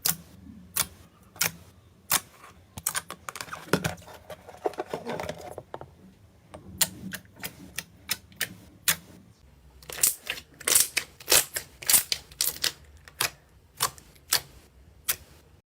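Slime being pressed and stretched by hand, giving off irregular sharp clicks and pops as trapped air bursts, quickening into a dense run of loud clicks about two-thirds of the way through.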